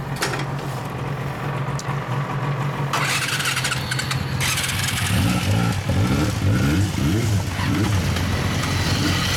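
Two 250 cc motorcycles idling: a 1998 Honda VTR250 V-twin and a 1991 Yamaha ZeaL inline-four. The engine sound thickens about three seconds in, and from about halfway there are several quick throttle blips that rise and fall in pitch.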